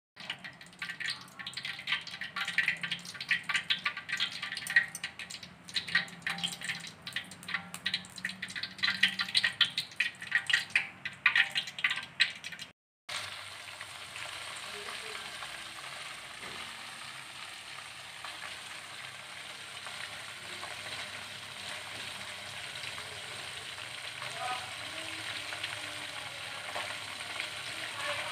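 Tilapia frying in hot oil in a wok: a loud, dense spattering crackle for the first dozen seconds, then, after a brief break, a steadier, softer sizzle.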